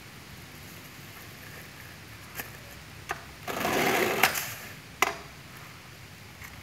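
Hand-operated sugar packing machine being worked by hand: a couple of clicks from its mechanism, then about a second of rattling as a dose of granulated sugar runs out through it, and a sharp click about a second later.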